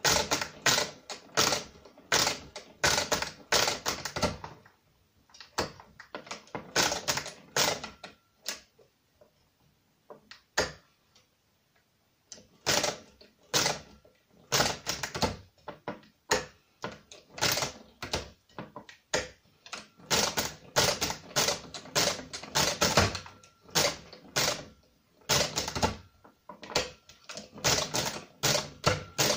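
Brunsviga pinwheel mechanical calculator worked by hand: runs of metallic clacking as the crank is turned through revolutions, a few strokes a second. There is a pause of a few seconds about a third of the way in.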